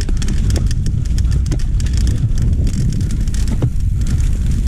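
Mountain bike rolling fast down a steep, loose dirt singletrack: a steady low rumble of wind on the microphone and tyres on the ground, with frequent sharp clicks and rattles from the bike over the rough surface.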